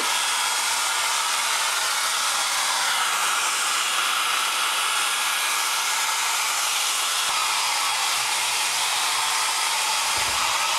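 Hair dryer blowing steadily, used to speed the drying of fresh paint on a patched door.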